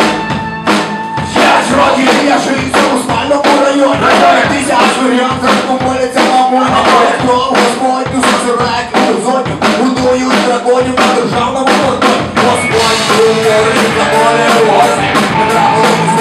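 Live rock band playing a fast song: a drum kit keeps a steady, quick beat under electric guitars and sung vocals.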